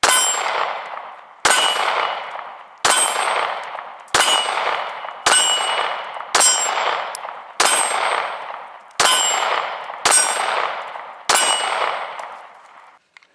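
Ten shots from a Glock 26 9mm pistol fired in steady slow succession, about one every second and a quarter. Each sharp crack is followed by a ringing tail of about a second.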